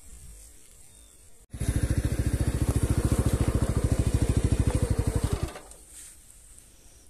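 A small engine running close by with a fast, even putter. It cuts in abruptly about a second and a half in and stops about four seconds later.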